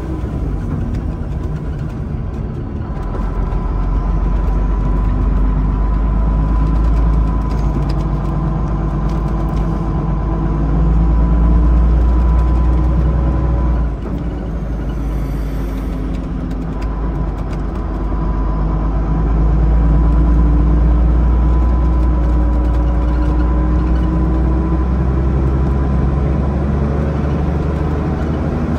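Engine and drivetrain of an ECW coach-bodied Leyland Olympian double-decker bus heard from on board at motorway speed, with a deep rumble and a steady high whine. The engine note climbs slowly, drops suddenly about halfway through, then climbs again.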